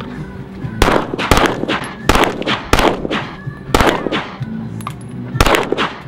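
A string of 9mm handgun shots fired in quick succession, the six loudest spaced about half a second to a second apart, with fainter cracks between them.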